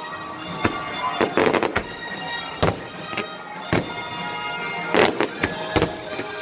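Fireworks shells bursting with sharp bangs, about ten in quick, irregular succession, several close together near the end, over music with held tones.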